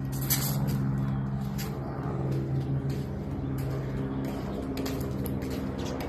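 A steady engine drone holding one low pitch, with scattered footsteps and small clicks over it.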